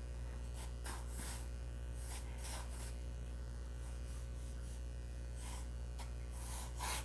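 Graphite pencil sketching on drawing paper: several soft, irregular strokes made lightly with the side of the lead. A steady low electrical hum runs underneath and is the loudest thing throughout.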